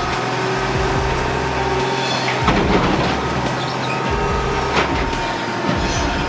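Heavy machinery running steadily, with two sharp knocks about two and a half and nearly five seconds in.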